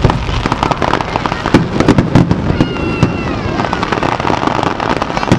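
Aerial fireworks shells bursting overhead, with dense rapid crackling from glittering stars.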